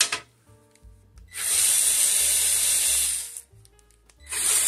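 Small cordless electric screwdriver (a Worx) run in two bursts of about two seconds each on a drive-bay bracket screw. It does not get the screw out, so a manual screwdriver is needed next. A sharp click comes at the very start.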